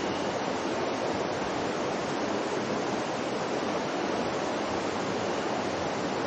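Mountain river water rushing: a steady, even noise of flowing water.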